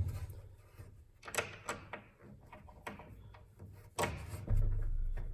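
Scattered knocks and clicks of hands handling a wooden bed rail joint and its Allen-key-tightened connector, with a sharper knock about four seconds in, followed by a low hum.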